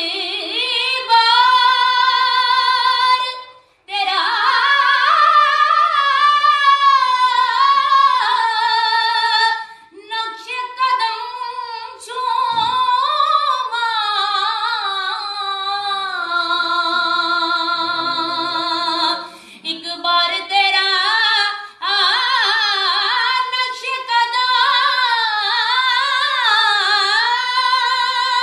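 A woman singing a naat unaccompanied, in long held, ornamented phrases with wavering pitch, pausing briefly for breath between phrases.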